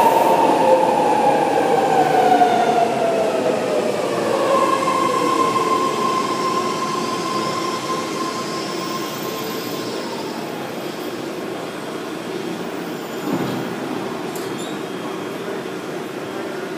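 8-car BART train pulling into the station and slowing to a stop. Its motor whine falls steadily in pitch over the first few seconds, a long steady squeal sounds through the middle, and the rumble grows quieter as the train slows, with a brief thud late on.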